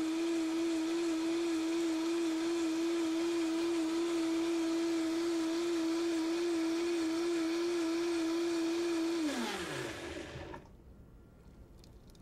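Vitamix 5200 blender running on high with a steady pitch, liquefying vegetables and ice into juice. About nine seconds in it is switched off and the motor winds down, its pitch falling away over a second or so.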